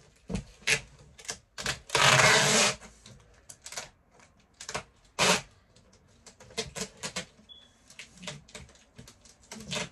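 Brown packing tape being sealed onto a cardboard box: a long strip pulled noisily off the roll about two seconds in and a shorter pull about five seconds in, amid many light taps and pats of hands pressing the tape onto the cardboard.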